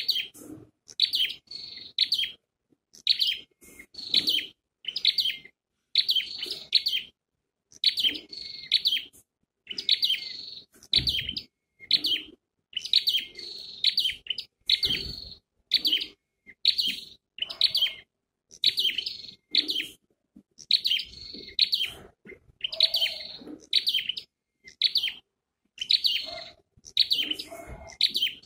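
Scarlet-backed flowerpecker calling as a decoy bird: short clusters of high, quick chirps repeated about once a second.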